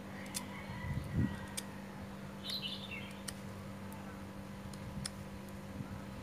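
Small blade clicking and scraping against a bougainvillea cutting's woody stem as its end is trimmed, a few sharp ticks spread irregularly, with a soft thump about a second in. A bird chirps briefly in the middle, over a steady low hum.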